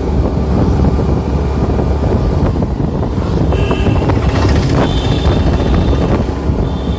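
Wind buffeting the microphone over the steady running of a motor scooter on the move, with a few brief high-pitched tones around the middle.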